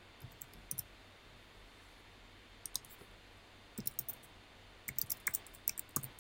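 Computer keyboard keys clicking in short irregular runs as a password is typed, the clicks coming thicker toward the end.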